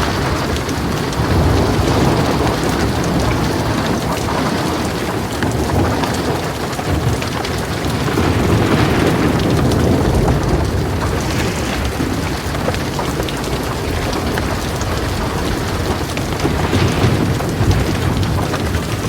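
Heavy rain pouring steadily, with thunder rumbling low underneath and swelling a little about halfway through.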